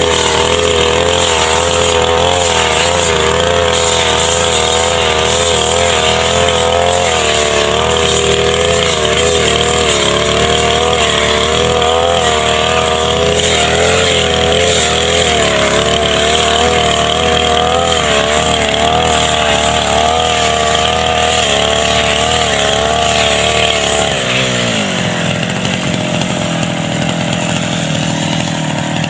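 Small two-stroke brush cutter (grass trimmer) engine running at high speed, its revs wavering up and down. About 24 seconds in it drops back to a lower, steady idle.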